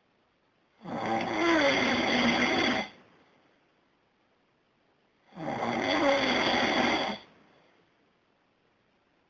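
A man snoring loudly: two long snores of about two seconds each, roughly four and a half seconds apart, with near quiet between breaths.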